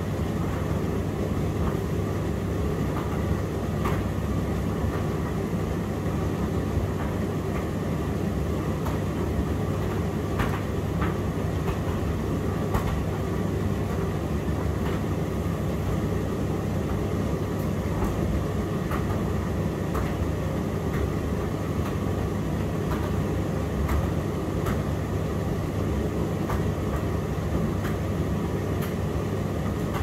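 Indesit IDC8T3 condenser tumble dryer running: a steady low rumble of the turning drum and fan with a constant hum. Scattered light clicks come through it.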